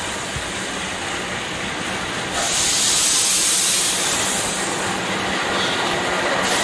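KAI CC 206 diesel-electric locomotive pulling a passenger train slowly past, its engine humming steadily. A loud hiss of air starts suddenly about two and a half seconds in and eases off after a couple of seconds.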